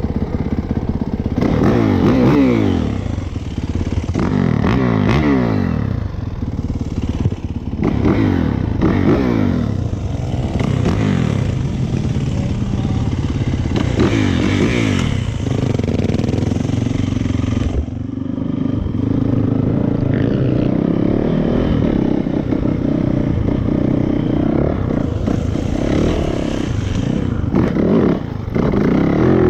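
2019 Yamaha YZ450FX's single-cylinder four-stroke engine accelerating hard off-road, its pitch rising and falling again with each gear change several times over the first half, then running at a steadier throttle for the rest.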